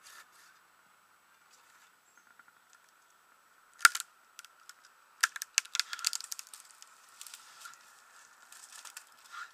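Dead maple branches being snapped off by hand: one sharp crack about four seconds in, then a quick run of smaller cracks and crackling of dry twigs for a couple of seconds, with a few more snaps near the end.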